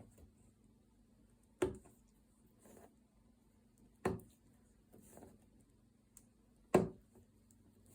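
Potholder loops being worked off a weaving loom during the bind-off: three sharp clicks about two and a half seconds apart, with faint rustling of the loops between them.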